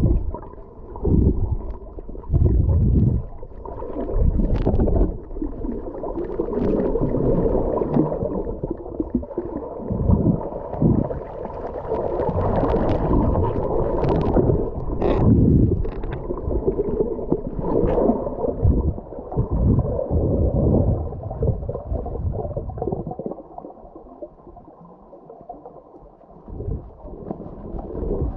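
Water gurgling and sloshing over the camera's microphone during a swim, in uneven surges of low rumble with a few sharp splashes, easing into a quieter spell near the end.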